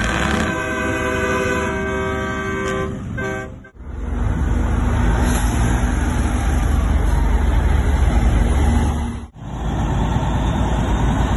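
A semi truck's multi-tone train-style air horn blows a held chord for about three and a half seconds and stops abruptly. Then a diesel semi truck's engine runs loud and low, close by, as the truck rolls past.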